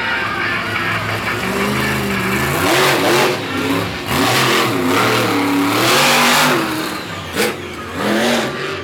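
Monster truck engine revving hard, its pitch rising and falling again and again, with loud noisy surges as the throttle opens and a sharp crack about seven seconds in.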